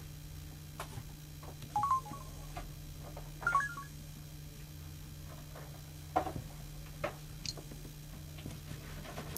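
Samsung SCH-W750 mobile phone giving short electronic key-press beeps, two quick clusters about a second and a half apart, as its buttons are pressed, followed later by a few light clicks. A steady low hum runs underneath.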